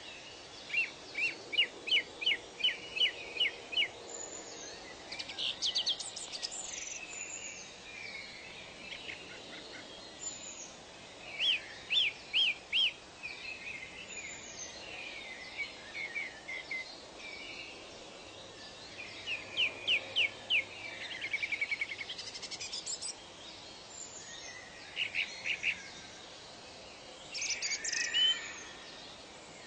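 Songbirds singing: short runs of quick, evenly spaced high chirps every few seconds, some overlapping, over a steady faint background hiss.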